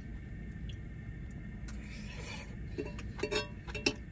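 A metal utensil clinking several times against a cast iron skillet in the last second and a half, over a steady low hum of a generator running.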